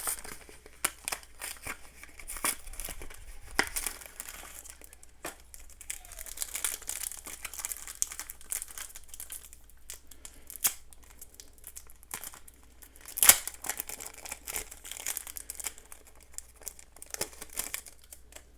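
Foil trading-card booster pack being crinkled and torn open: irregular rustling and crackling, with one sharp, loud crackle about two-thirds of the way through.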